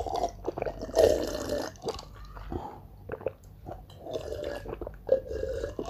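Close-miked chewing and biting, with wet mouth sounds and short clicks while eating.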